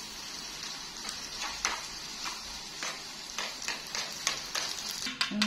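Corn stir-frying in a pan: a steady sizzle with irregular clicks and taps, as of a spatula against the pan. A voice starts just before the end.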